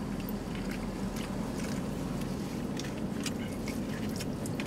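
Steady low rumble of a car driving slowly, heard from inside the cabin, with a few faint clicks over it.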